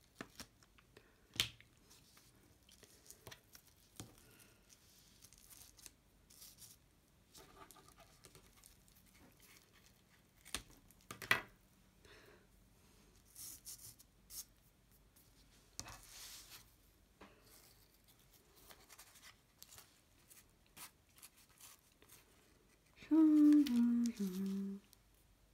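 Paper, card and sticky tape being handled on a craft table: scattered light clicks and rustles, with tape tearing and small scissors snipping. Near the end, a short hum from a voice that falls in pitch over about two seconds and is the loudest sound.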